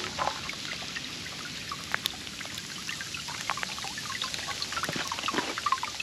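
Sleet ticking irregularly over a steady hiss of falling ice and snow.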